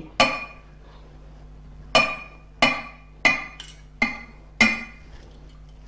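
Knife blade clinking against a serving platter as cooked carrots are roughly sliced on it: six sharp clinks, each with a short ring, the first near the start and the other five close together from about two seconds in.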